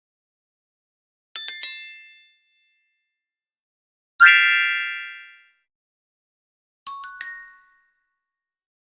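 Bright chime dings, a sound effect: a quick run of three or four high strikes about a second and a half in, one fuller ringing chord about four seconds in that dies away over a second, and two or three more strikes near the end, with dead silence between.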